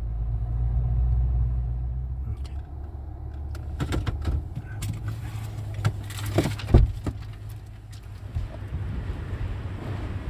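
Low vehicle rumble, strongest in the first couple of seconds, with a handful of sharp clicks and knocks around the middle.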